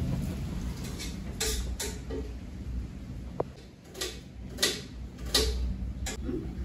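Kitchen knife knocking on a plastic cutting board while an onion is cut: about six sharp knocks, irregularly spaced half a second to a second apart.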